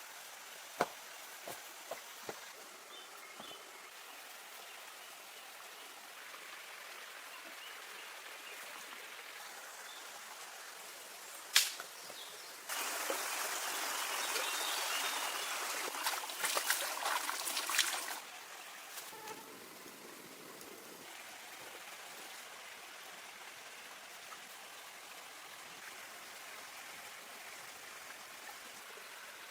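Steady flow of a stream or waterfall, with a few sharp knocks near the start and a single loud knock just over a third of the way in. Right after it, about five seconds of much louder rushing noise with crackles, then the steady water sound alone again.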